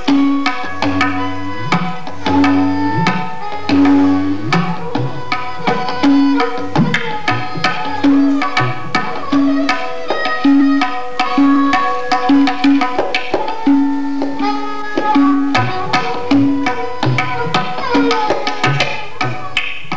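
Tabla playing a fast rhythmic cycle. The tuned dayan gives repeated ringing strokes and the bayan gives deep bass strokes that bend in pitch. A sarangi's bowed melody winds along with it.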